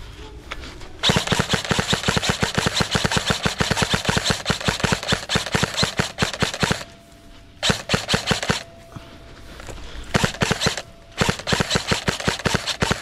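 Airsoft electric rifle (AEG) firing full-auto in four bursts of rapid clicking shots. The first burst runs about six seconds, followed by three shorter ones.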